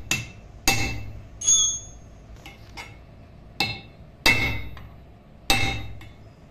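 Hammer blows on a steel rivet punch, setting the rivets that fasten the lining to a truck drum brake shoe: six sharp metallic strikes at uneven intervals, each ringing briefly.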